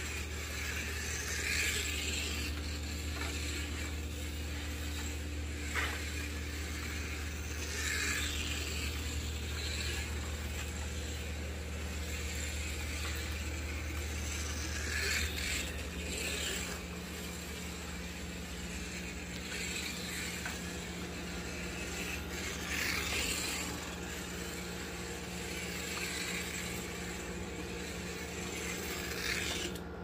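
A 1/24-scale slot car running laps on a plastic slot-car track: the whir of its small electric motor and gears with the rasp of its guide and pickup braids in the slot. The sound swells and fades every few seconds as the car comes past, over a steady low hum.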